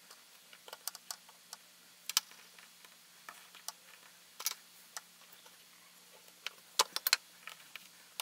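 Plastic Play-Doh tools and a plastic tray giving light, irregular clicks and taps against the tabletop as clay strands are cut and laid out, with a quick cluster of sharper clicks about seven seconds in.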